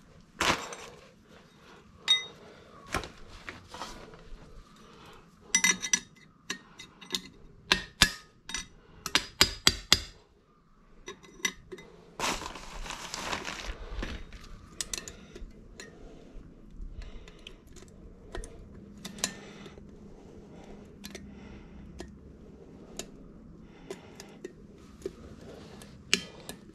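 Metal hand tools and parts clinking and knocking, with a quick run of ringing metallic clinks a few seconds in, a hiss of about two seconds near the middle, and scattered quieter taps after.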